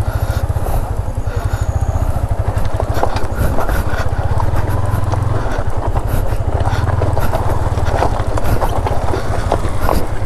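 Yamaha MT-15's single-cylinder engine running at low revs, a steady close throb, with scattered clicks and knocks over it.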